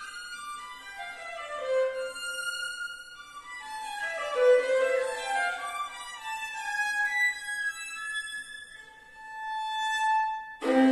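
Solo violin playing fast descending scale runs, then holding one long note; right at the end a fuller, denser sound of several notes at once comes in.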